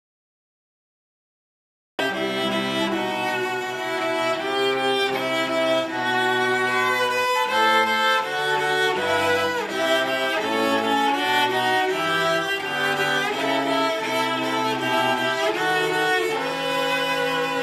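Dead silence for about the first two seconds, an editing cut, then a bowed string ensemble comes in mid-phrase, playing a melody in several parts over a moving bass line.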